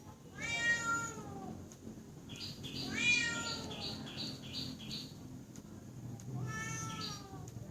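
A cat meowing three times, a few seconds apart, each meow a drawn-out call that rises and then falls in pitch; the middle one is the loudest.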